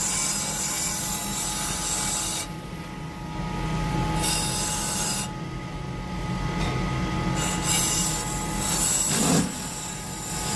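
Electric polishing spindle running with a steady hum while a turquoise-inlaid copper cup is pressed against its spinning pad, giving a harsh rubbing hiss. The hiss drops away twice for a second or two, the first time about two and a half seconds in, when the piece comes off the pad.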